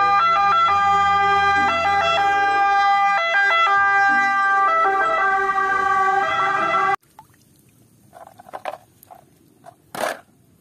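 Italian ambulance siren sounding in steady tones that jump between pitches, over a low engine hum, cutting off abruptly about 7 s in. After it, faint clicks and rattles of plastic toy cars being handled, with one sharper knock near the end.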